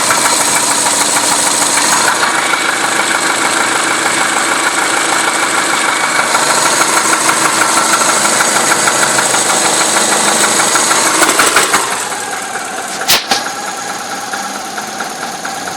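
Subaru Legacy's boxer engine running cold with a rapid, even knock. The uploader presumes the cause is a faulty idle air control valve. The sound drops in loudness about twelve seconds in, and there is one sharp click shortly after.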